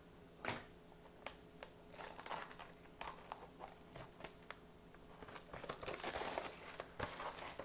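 Plastic wrapping crinkling and tearing as a trading-card mini box is cut open with small scissors, with scattered sharp clicks. The crinkling is densest near the end.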